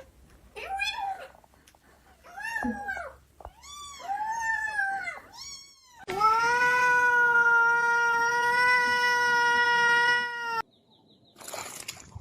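A cat meows several times in short rising-and-falling calls. It then gives one long, loud yowl held on a steady pitch for about four seconds, which cuts off abruptly.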